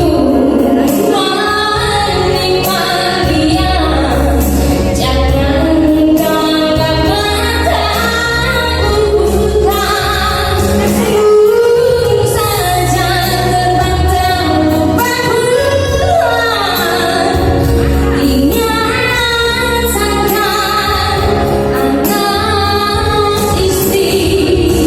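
Background music: a song with a woman singing over a steady bass accompaniment.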